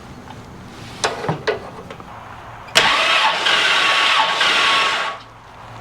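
Starter cranking the 454 big-block V8 of a 1964 Impala for a compression test, turning the engine over without it firing for a little over two seconds. A couple of light clicks come about a second in, before the cranking.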